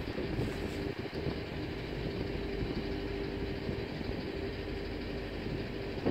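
The passenger ferry MV Ali Cat's diesel engines running steadily as the boat comes alongside the pier: a low drone with a steady hum on top.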